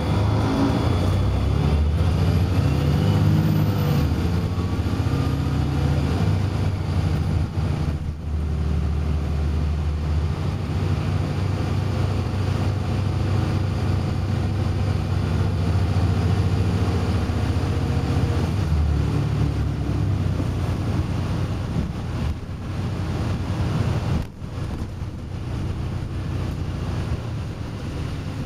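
Volvo B7RLE bus's six-cylinder diesel engine and drivetrain, heard from inside the saloon while the bus is under way. The engine note rises and falls over the first few seconds, then holds steady, with a brief drop in loudness about 24 seconds in.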